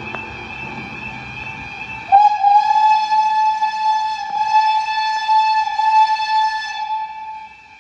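Whistle of BR Standard Class 4 2-6-4T steam tank locomotive 80078 sounding as it approaches a level crossing. It is one long blast of about five seconds, broken briefly about halfway, starting about two seconds in. A steady high-pitched crossing warning alarm sounds under it.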